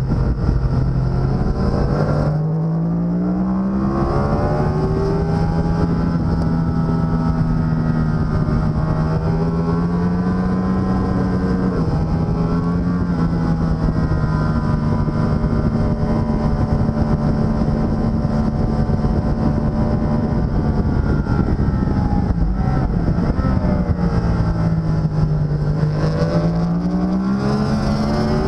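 Racing motorcycle engine heard onboard at track speed, running hard under load. Its note breaks briefly about two seconds in and then climbs, holds fairly steady through the middle, and drops then rises again near the end.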